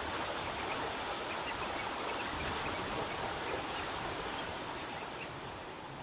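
A flock of long-billed dowitchers giving many short, high calls, scattered and overlapping, over a steady rushing background. The calls thin out near the end.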